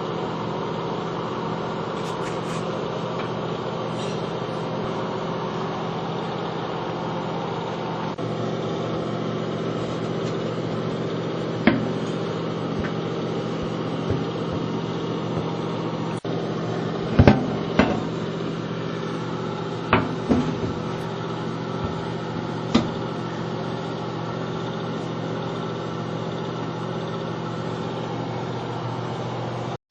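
A steady low machine hum, with a handful of sharp knocks and clicks in the middle stretch, the loudest a close pair about halfway through.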